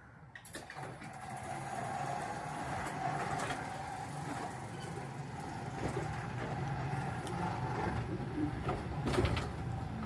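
Genie screw-drive garage door opener lowering a sectional garage door. A steady motor hum, with the door rolling down its tracks, starts about half a second in, and a few knocks come near the end as the door reaches the floor. The door closing all the way shows that the replaced infrared safety sensors now let it close.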